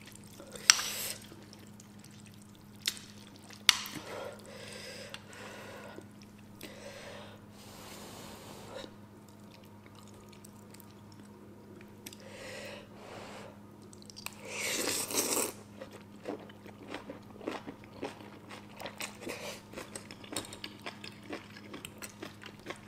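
Close-up eating of instant noodles: wet chewing and mouth clicks, with a few sharp clicks in the first four seconds. About two-thirds through comes a longer, louder rush of noodle slurping, then a steady run of small chewing clicks. A faint steady hum sits underneath.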